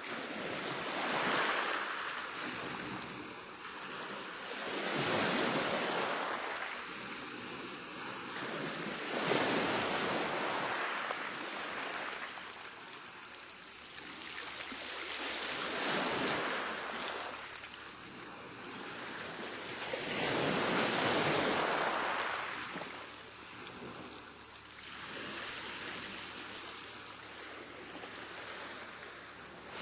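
Waves on a rough sea, breaking and washing in over and over, each surge swelling and fading every few seconds.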